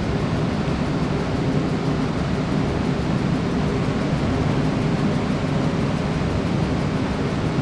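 Steady rushing noise with a faint low hum under it, unchanging throughout.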